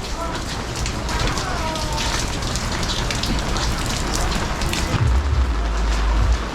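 Heavy rain falling, with a steady hiss and many sharp drops pattering on hard surfaces close by. A low rumble joins in about five seconds in.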